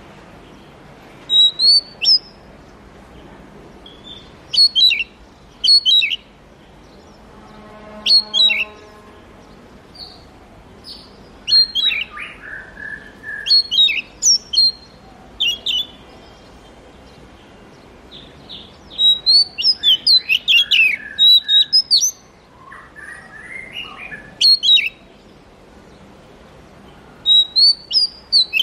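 Oriental magpie-robin singing: short phrases of sharp, high whistled and chattering notes that come every second or two, with a few lower harsh notes in between.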